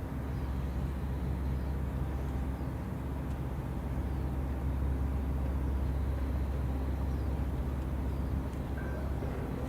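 Steady low engine rumble with faint steady humming tones above it, holding even throughout.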